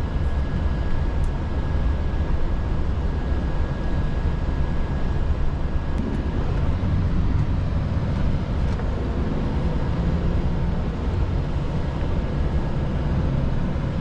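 Volvo FH16 timber truck's engine running with a steady low rumble, heard inside the cab. A faint steady high tone sits over it through the first half.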